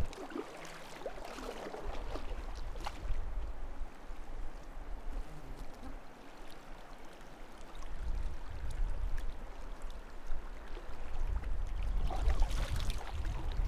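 River water trickling and gurgling, with a few faint knocks; a low rumble joins about eight seconds in.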